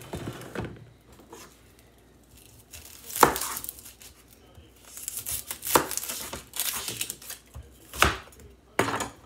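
Kitchen knife cutting an onion on a plastic cutting board: several sharp knocks of the blade striking the board, with rustling of papery onion skin between them.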